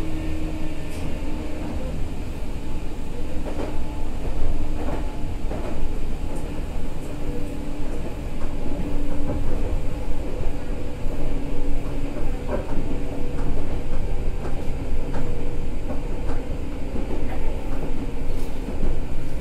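Meitetsu 6000 series electric train running between stations: a steady rumble of wheels on the rails under a constant motor and gear hum, with a few sharp clicks along the way.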